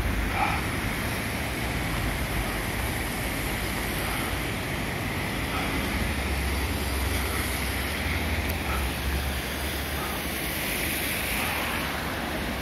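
The River Usk in spate, a steady rush of fast floodwater, with a low rumble underneath.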